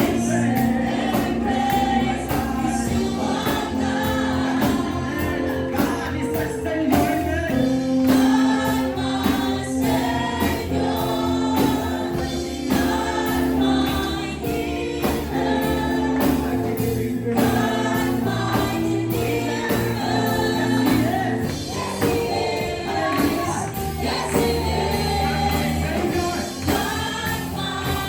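Congregational gospel worship music: a group singing together over a live band, with steady percussion strokes.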